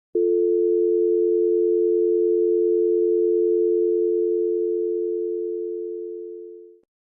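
North American telephone dial tone: two steady tones sounding together, starting abruptly and fading out near the end.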